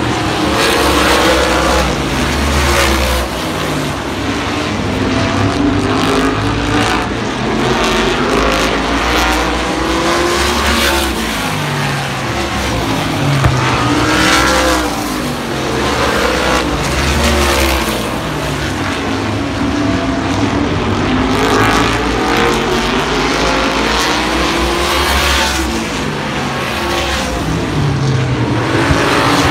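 Winged sprint cars racing, their V8 engines revving hard, with the pitch rising and falling again and again as cars come past and go through the turns.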